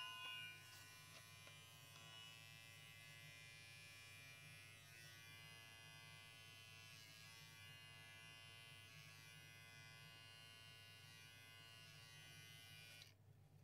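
Electric pet hair clippers running with a faint, steady buzzing hum as they shave a Persian cat's long fur. The hum cuts off near the end.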